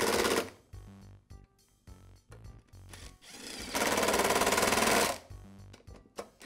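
Socket ratchet clicking rapidly as it tightens the ignition module's mounting screws: a short burst at the start and a longer one lasting over a second about four seconds in.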